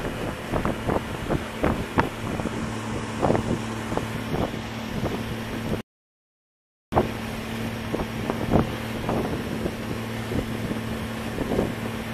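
Small motorboat's engine running steadily underway, with wind buffeting the microphone in irregular gusts. The sound cuts out completely for about a second midway.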